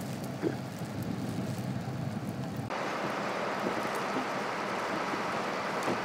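A vehicle engine idling as a steady low hum. About halfway through, the sound cuts abruptly to a steady rush of wind noise on the microphone.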